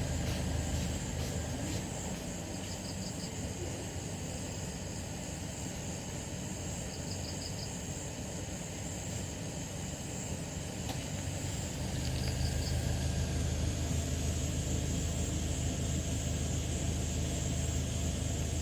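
A steady engine hum, growing louder about twelve seconds in, with a thin high whine above it and three short runs of quick high chirps.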